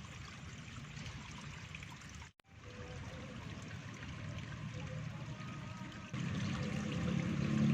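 Steady rush of flowing water, cut by a brief dropout about two seconds in. A louder low rumble joins about six seconds in.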